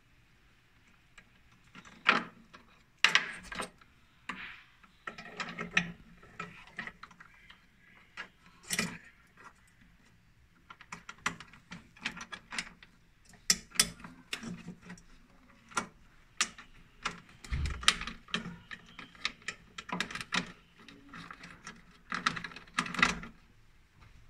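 Irregular clicks, taps and rustles of small plastic and metal parts being handled: wire connectors being pushed together and an H3 LED bulb being seated in a plastic fog-light housing and clipped in. It starts about two seconds in.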